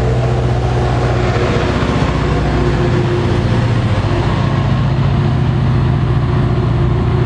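Commuter train of bilevel coaches passing close by with a steady rumble of wheels on rail, over the constant low drone of its diesel locomotive's engine.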